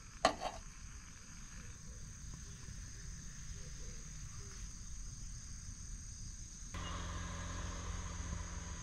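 Steady high insect chorus in the background, with one short knock just after the start. The background gets abruptly louder and fuller about seven seconds in.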